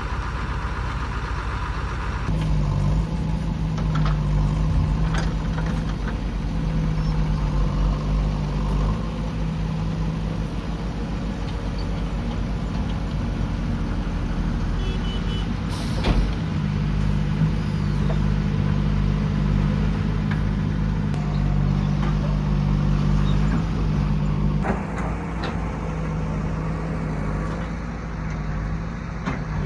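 Heavy diesel machinery running steadily, the JCB 3DX backhoe loader's engine working, its note shifting a little up and down, with a single sharp clank about halfway through.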